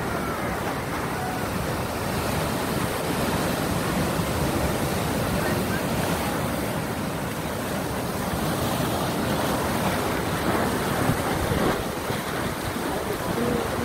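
Ocean surf breaking on a rocky shore and washing back in foam: a continuous rushing that swells and eases slightly.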